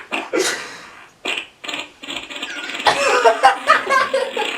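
A long prerecorded fart sound effect playing from a soundboard. It sputters in short bursts broken by gaps, then runs on in a longer wavering stretch.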